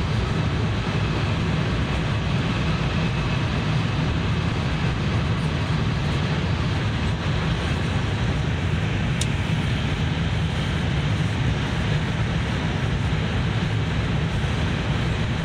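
Tohoku Shinkansen Hayabusa train running at speed, heard inside the passenger cabin: a steady low rumble with an even rushing hiss of wheel and air noise. A single short click about nine seconds in.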